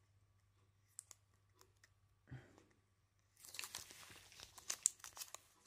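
Protective backing being peeled off the adhesive side of a Velcro strip: a crackling, tearing rasp of many small clicks, starting about three and a half seconds in after a few faint ticks.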